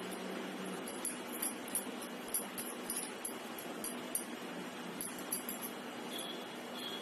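Light, quick clinking and jingling of bangles on a wrist as hands press and shape mashed-potato patties, a scattered run of small clinks that stops about five and a half seconds in, over a steady background hum.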